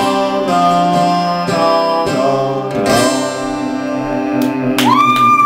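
Acoustic guitar strumming the closing chords of a song. Near the end a high tone slides up and is held over the strumming.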